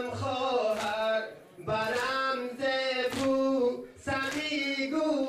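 Male voices chanting a Persian noha, a Muharram mourning lament, in a drawn-out melody. Hands strike chests in time with it, a sharp slap about once a second, four times.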